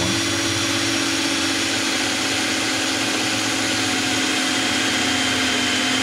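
Cordless drill running at a steady, constant speed, its bit boring through a key tab that has metal inside.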